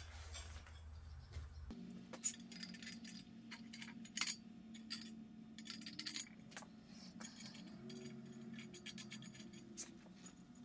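Light metallic clinks and taps as steel bolts, nuts and a flat steel adapter plate are handled and fitted onto an engine stand's mounting head, with a low steady hum behind from about two seconds in.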